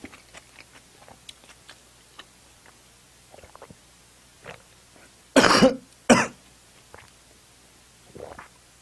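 A man coughing twice, sharply and close together, about five seconds in, while drinking from a plastic bottle; faint small mouth and swallowing clicks run between.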